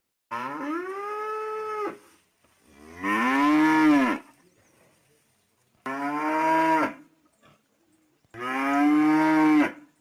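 Cattle mooing: four long moos with short pauses between them, each rising and then falling in pitch.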